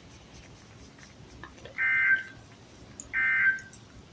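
Emergency Alert System end-of-message data tones: two short, identical buzzing bursts about 1.3 seconds apart, the coded signal that closes a severe thunderstorm warning broadcast.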